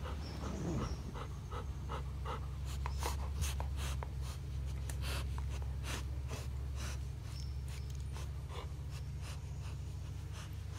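A Labrador retriever chewing and mouthing a plush toy: irregular wet clicks and smacks from its jaws and teeth, with panting breaths, over a steady low hum.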